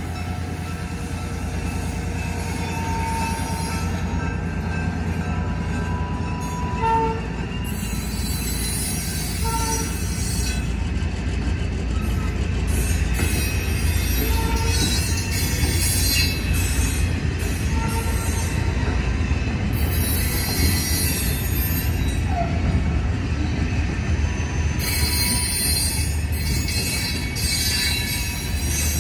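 Diesel switcher locomotive and its freight cars rolling slowly across a street crossing: a steady low rumble of engine and wheels on rail, with wheel squeal breaking out several times as the cars pass.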